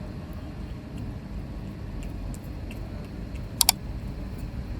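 Steady low rumble with faint scattered ticks, and a sharp double click, two quick clicks close together, about three and a half seconds in.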